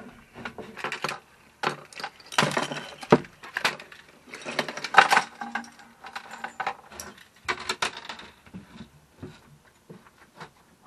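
Irregular metallic clinking and rattling of fishing hooks and lures being handled, mixed with a set of keys jangling. The sharpest clinks come about three and five seconds in.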